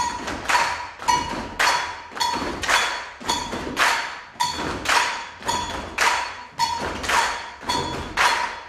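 A large group keeping a steady beat in unison with body percussion, about two hits a second.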